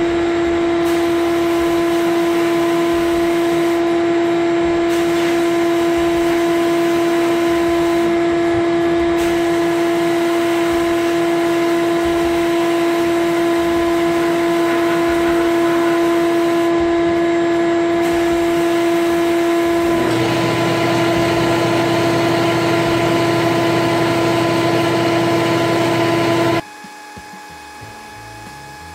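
Sandblast cabinet in use: the compressed-air blast gun hisses steadily over a steady droning hum, which changes about two-thirds of the way through. The loud sound cuts off abruptly a couple of seconds before the end, leaving a much quieter sound.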